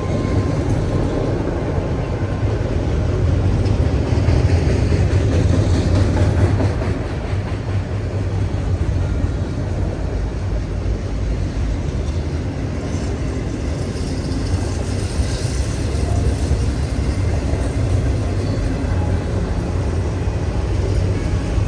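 A CSX freight train rolling past, a loud, steady rumble of the cars on the rails that holds throughout.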